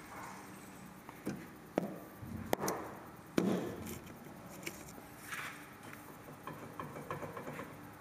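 Sharp metal knocks and clicks as a rear brake caliper is worked loose and pulled off its bracket: four distinct knocks in the first few seconds, then a run of lighter ticks near the end.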